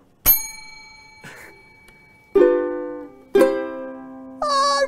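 A bell struck once, its high ring fading over about two seconds. Then a ukulele is strummed twice, about a second apart, and a held, higher-pitched sound follows near the end.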